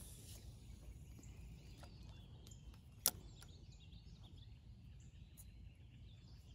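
Faint bird calls over a low, steady outdoor background, with one sharp click about three seconds in, the loudest sound here.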